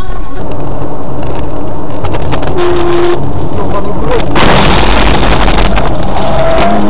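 Dashcam audio from inside a moving car: loud, distorted road and engine noise, with a short steady tone about two and a half seconds in. About four and a half seconds in comes a sudden harsh rush of noise lasting about a second, as the car meets a cement mixer truck cutting across its lane.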